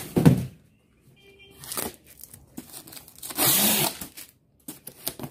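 Cardboard box and packaging being rummaged through: scattered rustles and scrapes, with a longer, louder scraping rustle a little past three seconds in.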